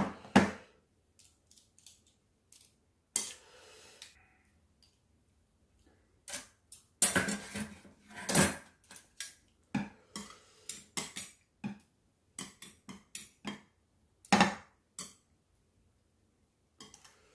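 Metal chopsticks and a ladle clinking against bowls while empty clam shells are dropped into a stainless steel bowl: scattered clicks and clatters, busiest about halfway through.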